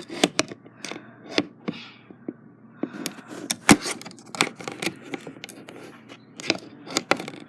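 Irregular clicks and knocks of a camera or phone being handled and repositioned, the loudest knock about three and a half seconds in.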